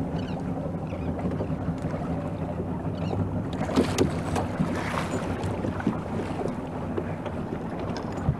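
Wind buffeting the microphone over a steady low hum, with a few scattered knocks.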